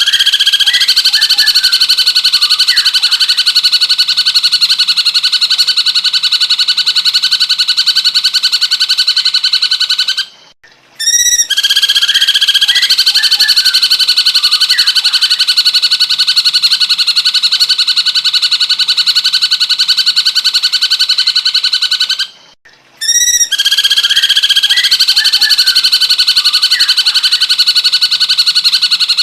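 Looped recording of a cucak cungkok's song: a brief run of rising chirps, then a long, very fast, buzzing trill of about ten seconds. It repeats three times, with a short break before each repeat.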